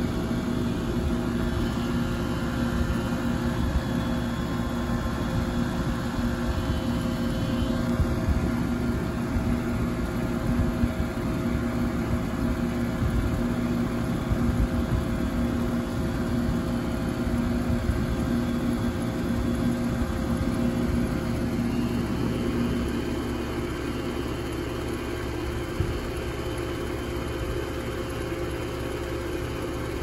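2001 York 2-ton air conditioner running steadily: a constant machine hum with a pitched drone over a fluttering low rumble. The strongest hum tone weakens about three-quarters of the way through.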